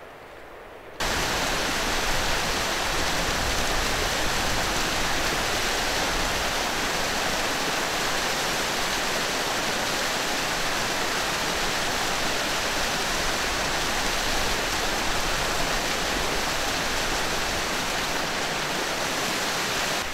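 Mountain stream tumbling over rocks in small waterfalls: a steady rush of water that cuts in suddenly about a second in.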